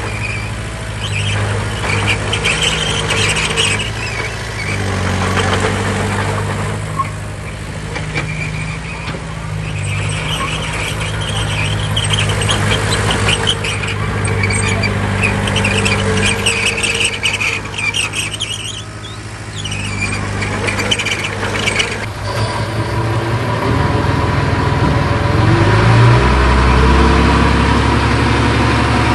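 Heavy diesel earthmoving machinery working: a low engine drone with recurring bursts of high-pitched squealing and clattering. About three-quarters of the way through the engine note changes and revs up, rising in pitch.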